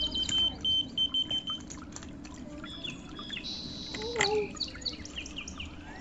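Whistle-activated key finder keychain beeping, a high electronic tone in quick pulses that stops about a second and a half in. Birds chirp for the rest of the time.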